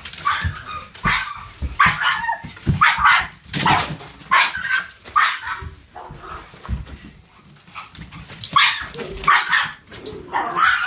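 Pug barking in short, excited bursts, about one a second, worked up during rough play; the barking pauses for about two seconds past the middle, then four more barks follow.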